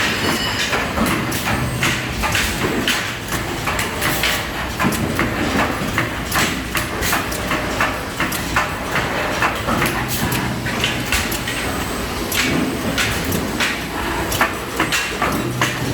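Industrial machinery of an automated muffler welding and press line running: a steady low hum under frequent sharp metallic clicks and clanks.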